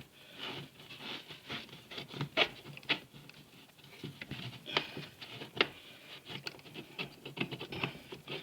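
Irregular small clicks, taps and rubbing as plastic parts of a washing machine's water-control valve are handled and pressed back together, with a few sharper clicks among them.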